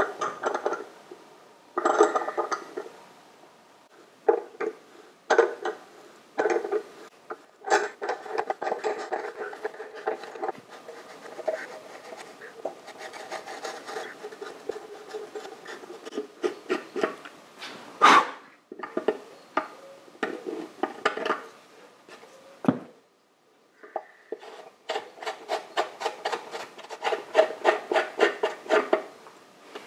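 A hand file rasping in repeated back-and-forth strokes, in runs broken by short pauses. A single sharp knock about 18 seconds in is the loudest moment.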